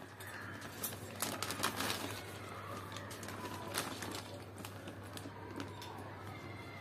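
A plastic bag of potting soil crinkling and crackling as it is handled, loudest in a cluster of sharp crackles about a second in and once more near the four-second mark. Birds call in the background.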